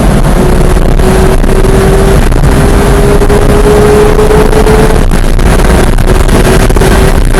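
Porsche 991.1 GT3's naturally aspirated flat-six pulling hard at high revs, with heavy wind and road noise. The engine note climbs slowly and breaks off twice, about two and five seconds in.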